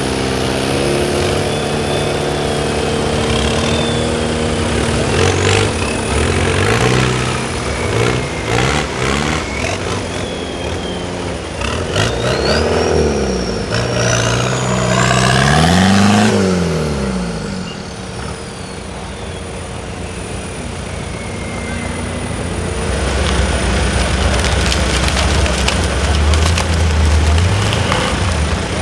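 Off-road 4x4 engines running and revving hard in a mud pit, their pitch repeatedly surging up and dropping back, loudest about 16 seconds in. A high whine climbs to a peak at that point and then slides slowly down.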